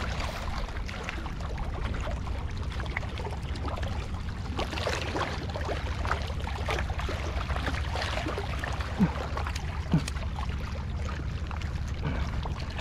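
Shallow seawater lapping and splashing around the wading angler, with steady wind noise on the microphone and two short louder knocks about a second apart in the second half.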